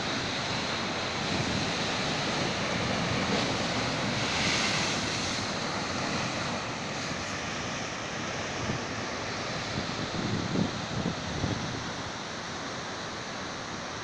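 Heavy surf breaking against rocks, a continuous wash of waves with a louder breaking wave about four seconds in. Wind gusts on the microphone now and then in the second half.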